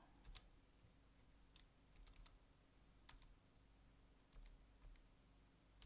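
Faint, scattered keystrokes on a computer keyboard: single key clicks every half second to a second, with a couple of quick pairs, over a low hum.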